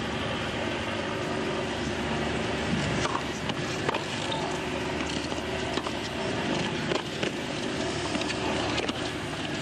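Tennis rally on a hard court: a run of sharp racket strikes on the ball and ball bounces, about one a second from a few seconds in, over steady background noise from the stands.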